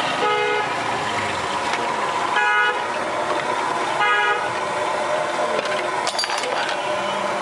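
Vehicle horns honking in street traffic: three short toots about two seconds apart over a steady din of traffic.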